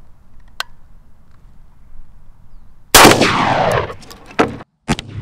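A single shot from a Beretta A300 12-gauge semi-automatic shotgun about three seconds in, very loud, with a fading echo of about a second. Two short sharp clicks follow near the end.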